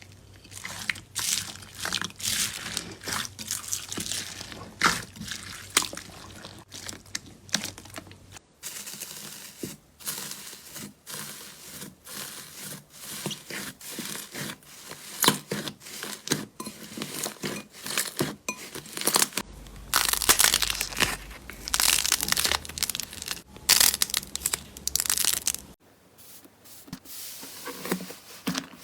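Slime being squeezed, poked and stretched by hand: a dense run of crackles, clicks and sticky pops. The texture changes abruptly three times as one slime gives way to another.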